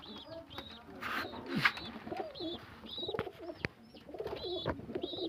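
Pigeons cooing in a coop, while a young bird peeps in short high notes about twice a second, with a few knocks and rustles of handling.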